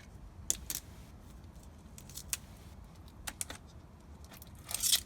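Sharp clicks and snips of a cutting tool working at a LiPo battery pack to cut the damaged cell free. There are a handful of separate clicks, then a longer, louder scraping crunch near the end.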